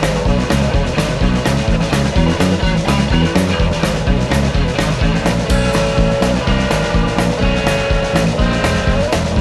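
Rock music with electric guitar and drums, a steady beat.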